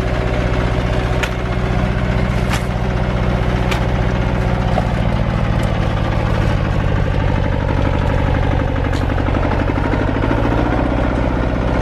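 Compact tractor engine running steadily while it carries a mounted hoe cultivator through the soil, with a few sharp clicks now and then.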